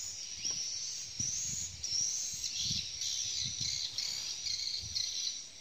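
A continuous chorus of high, repeated chirps and trills from birds and insects, with soft low thumps underneath.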